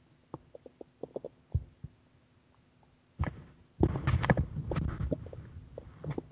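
Stomach growling on an empty stomach: a few small scattered gurgles, then a long, loud gurgling rumble starting a little past three seconds in and dying away near the end.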